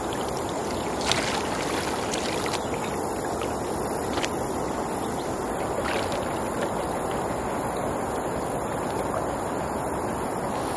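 Steady rushing of flowing river water, with a few short splashes of wading and hands in the water about one, two, four and six seconds in.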